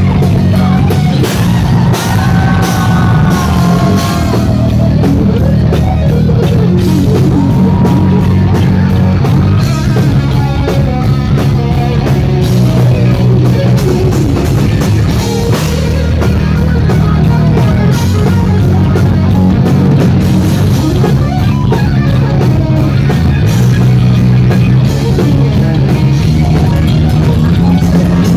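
Loud live heavy metal band playing: distorted electric guitars, bass and drum kit, with gliding melody lines over a dense low end, recorded on a phone's microphone near the stage.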